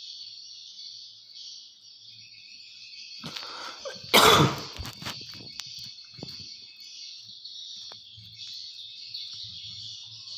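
A person coughs once, loudly and suddenly, a little over four seconds in, over a steady high-pitched background hiss.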